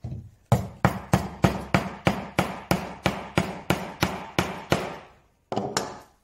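Small hammer tapping a glued, splintered piece of brittle mahogany back into place, about three even strikes a second, then two more after a short pause near the end.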